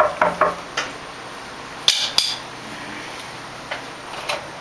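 Kitchenware being handled: a few scattered sharp clicks and knocks, the two loudest close together about two seconds in.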